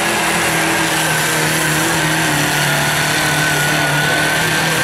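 Compact diesel pulling tractor's engine running hard at high, nearly steady revs under load as it drags the weight sledge, with a steady high whine over the engine note.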